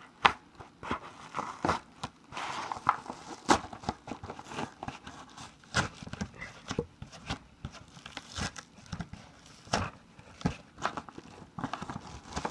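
A mail package being opened by hand: crinkling and tearing of the packaging, with scattered taps and knocks as it is handled.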